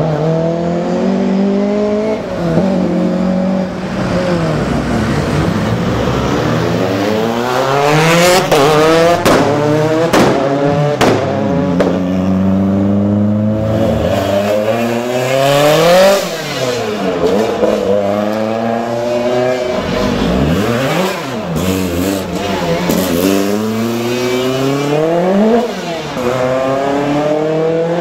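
Rally car engines accelerating hard one after another. Each engine note climbs and drops with gear changes, and sharp exhaust bangs come in among them.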